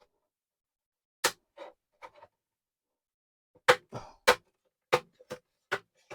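Plastic snap clips of a laptop's case popping and clicking as the casing is pried open. One sharp click comes about a second in, then a quicker run of clicks and snaps from about three and a half seconds.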